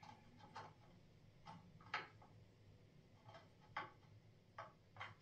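Faint, irregular clicks and light taps, about eight in five seconds, from handling and fitting the hinge parts of a soft-close toilet seat.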